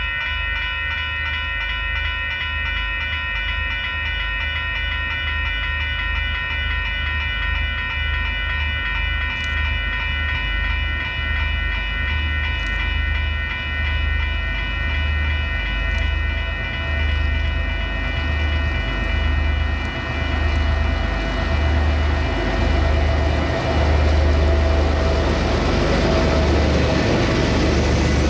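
Diesel-electric freight locomotive running with a heavy low rumble and a steady high-pitched whine, the noise swelling over the last few seconds as the train draws closer.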